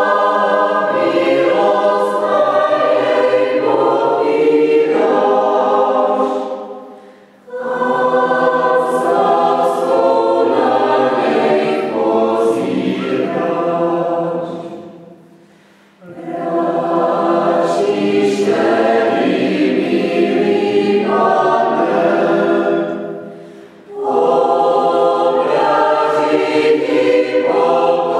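Mixed church choir of men's and women's voices singing a Czech hymn unaccompanied, in four phrases with a short breath between each.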